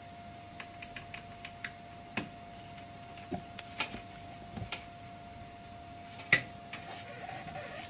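Scattered small plastic clicks and taps as a front-panel connector block is handled and pushed onto the motherboard's header pins, with one sharper click about six seconds in.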